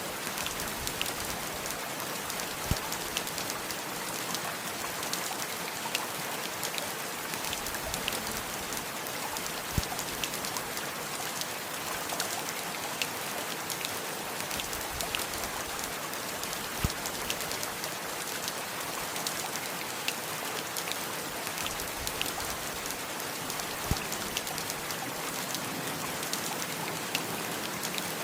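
Steady heavy rain falling on surfaces: a dense, even hiss with many separate drops clicking close by. A louder single knock comes about every seven seconds.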